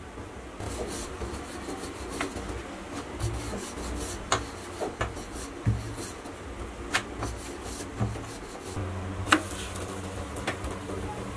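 A wooden rolling pin rubbing and rolling dough on a granite counter, with scattered knocks and clicks, the sharpest one about nine seconds in, over a steady low hum.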